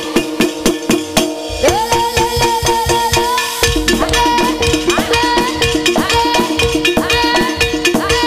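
East Javanese jaranan-style ensemble music accompanying a Bantengan dance: a reedy melody whose notes swoop up into held tones, over fast drum strokes and steady ringing gong-chime tones.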